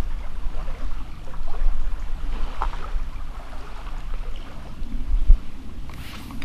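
Wind rumbling on the microphone, a low, uneven buffeting, with a few faint clicks from fingers handling a fishing swivel and line.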